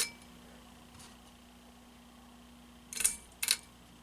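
Encon hugger ceiling fan's motor humming steadily with the fan switched to reverse, with a sharp switch click at the start and two more short clicks about three seconds in.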